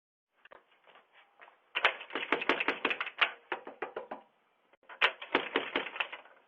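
A rapid series of sharp clicks and taps in two runs: a long one starting about two seconds in and a shorter one about five seconds in.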